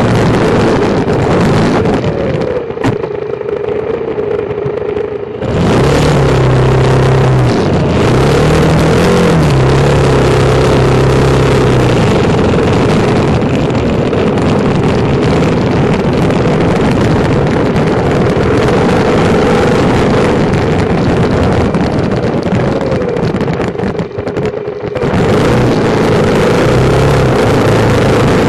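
BMW F650GS motorcycle engine through its stock exhaust, running loud under throttle with engine speed rising and falling, and eased off twice: once for a few seconds near the start and briefly near the end.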